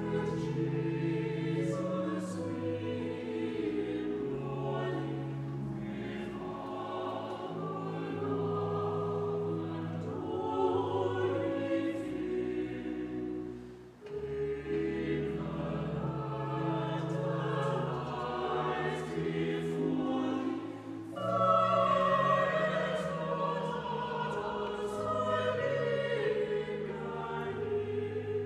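Church choir singing in several parts, with long held chords and a brief break between phrases about halfway through.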